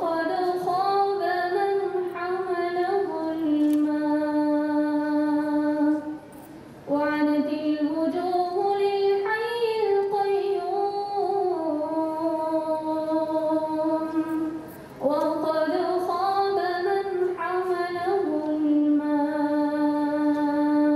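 A young woman's voice reciting the Quran in Arabic in melodic tajweed style, in three long drawn-out phrases with held, slowly gliding notes. She pauses for breath about six and fifteen seconds in.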